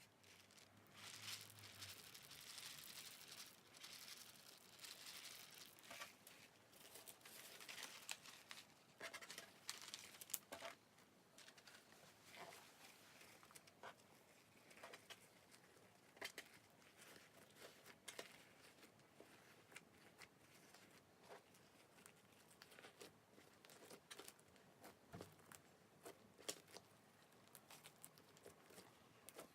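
Slime mixed with crushed Banana Kick corn-puff snack being squeezed and pressed by hand, crackling and popping. The crackle is dense for the first ten seconds or so, then thins to scattered clicks and pops.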